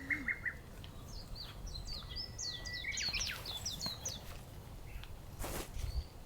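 A small songbird singing a quick run of short, falling chirps over a steady low outdoor background noise, with a brief rustle near the end.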